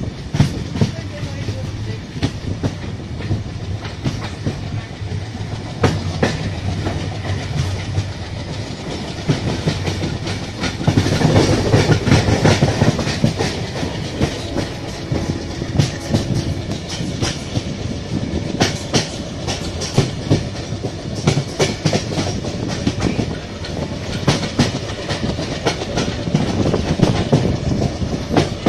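Passenger train running along the track, heard from an open window of the coach. A steady rumble carries irregular clickety-clack of the wheels over rail joints, and it grows louder for a couple of seconds about eleven seconds in.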